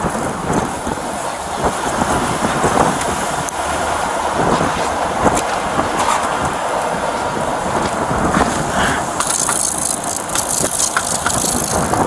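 Outdoor noise of truck engines running and wind on the body-camera microphone, with footsteps crunching on snow and scattered small knocks. A high hiss sets in about nine seconds in.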